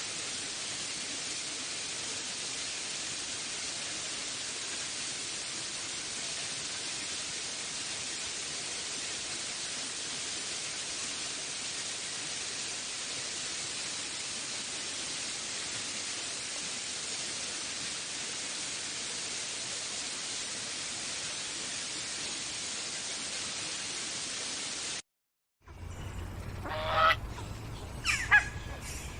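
A steady, even hiss that stops abruptly, then after a brief gap harsh bird calls, three or so loud ones near the end over a low hum.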